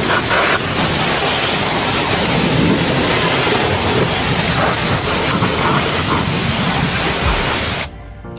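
Pressure washer spraying water: a loud, steady hiss of spray that cuts off suddenly near the end.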